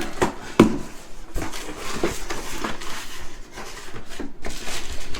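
Cardboard meal-kit shipping box being opened and handled: a few sharp knocks in the first two seconds, then rustling of flaps and packaging.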